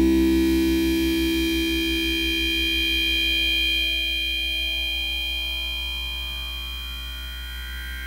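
Noise-rock instrumental music: sustained droning tones over a fast low pulsing, slowly fading away.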